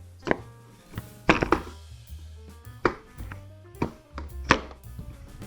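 About six sharp plastic clicks and knocks, spaced irregularly, as the cutting-height adjuster on a Bosch ARM 32 electric lawnmower is worked into its medium setting; the adjuster moves stiffly. Background music plays underneath.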